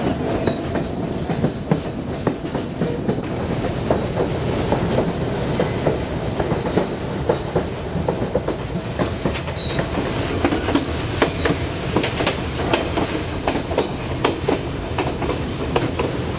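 Narrow-gauge passenger train running, heard from a car's open end platform: a steady low rumble of the rolling car with frequent irregular clicks and rattles of the wheels and running gear.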